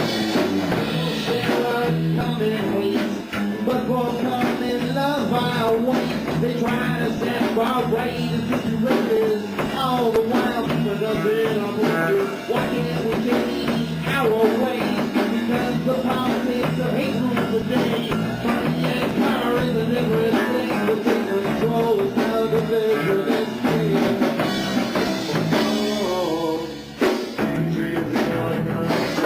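Three-piece rock band (guitar, bass guitar and drum kit) playing a rock song.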